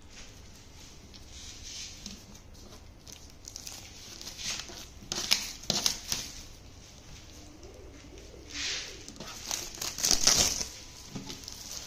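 Clear plastic wrap on a wall clock crinkling as hands handle it, in two louder spells, about four seconds in and again near the end.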